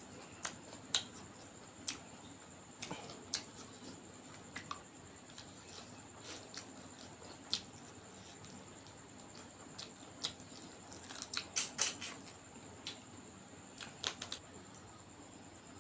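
Close-miked eating sounds: irregular short wet clicks and smacks of chewing, with a quick flurry of them about three quarters of the way through.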